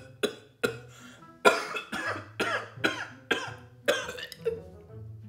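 A man coughing and gagging in a rapid string of about nine harsh coughs, stopping a little after four seconds in. It is a gag reaction to the strong fishy smell of taramosalata.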